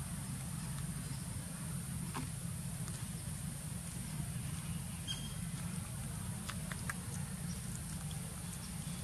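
Steady outdoor background of a low hum and a high hiss, with a few faint short clicks as a young macaque picks up and eats small bits of food.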